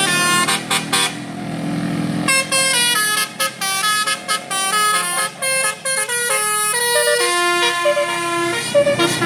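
A bus's Basuri telolet horn, a multi-tone musical air horn, playing a tune of short stepped notes. About a second in, the notes give way to a rush of noise with a low steady tone. After that the melody carries on as a quick run of short notes.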